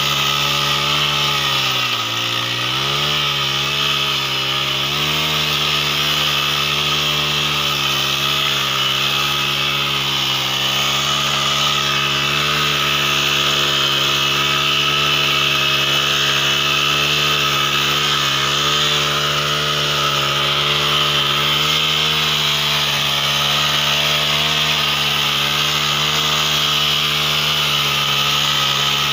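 Small petrol engine of a wheeled mini tiller running at high speed while its rotary tine head churns through weeds and soil. The engine pitch dips briefly about two seconds in as the tines bite, then wavers a little under the changing load.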